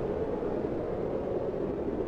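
Strong blizzard wind blowing steadily, a constant low rushing whoosh.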